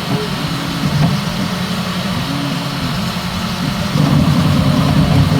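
Bambu Lab X1 Carbon 3D printer printing, its motors whining in short tones that shift up and down in pitch as the head moves, over a steady noisy hum; it gets louder about four seconds in.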